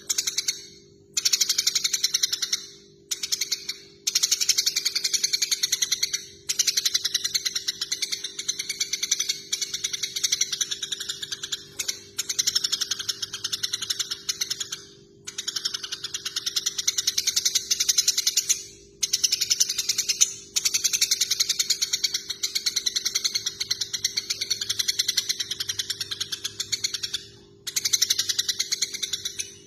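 Eurasian tree sparrows chattering rapidly and harshly in bouts of a few seconds with brief breaks: the agitated calls of sparrows fighting. A steady low hum runs underneath.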